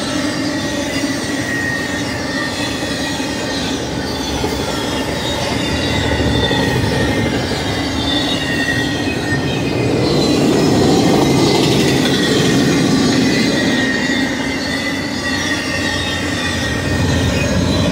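Intermodal freight train cars rolling past at speed: a steady loud rumble of steel wheels on rail, with thin high-pitched wheel squeal over it.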